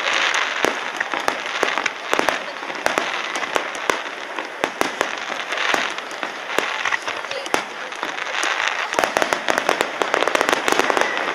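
Fireworks display: aerial shells bursting with many sharp pops over a steady crackle, the pops coming thickest near the end.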